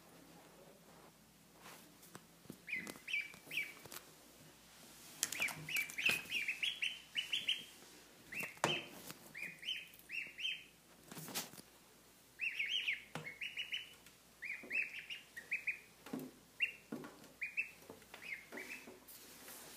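Mallard duckling peeping: quick, high peeps in short runs of two to four, repeated over and over, the insistent crying the uploader says this duckling makes constantly. A few knocks come between the runs.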